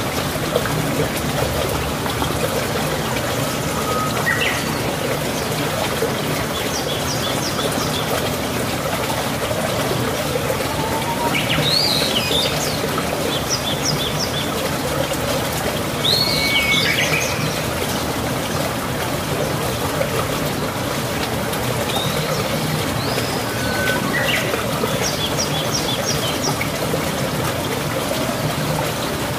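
Birds chirping and calling every few seconds over a steady rush of running water; some calls are quick series of short high notes, others brief rising or falling whistles.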